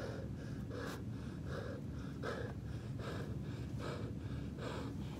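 A man panting hard and fast, about one and a half loud breaths a second: out of breath from exertion after running and push-ups.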